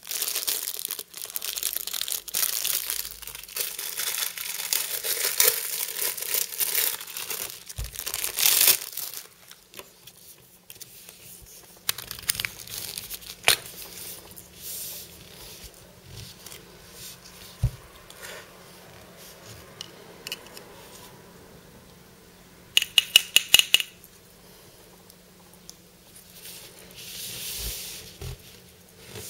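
Clear plastic wrapper crinkling and tearing as a small plastic toy is unwrapped, dense for about the first nine seconds. After that, quieter handling of the plastic toy with scattered clicks and a quick run of sharp ticks about two-thirds of the way in.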